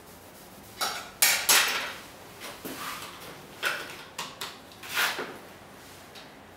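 Bent stainless steel tube and small hard objects being handled and set down on a steel-topped workbench: a series of clinks, knocks and clatters, the loudest between one and two seconds in.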